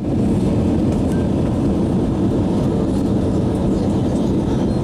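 Airliner on its landing approach, with a steady low rumble of engine and air noise.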